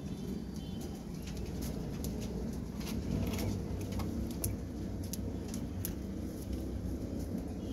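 Lahore pigeons cooing, a low continuous throaty cooing.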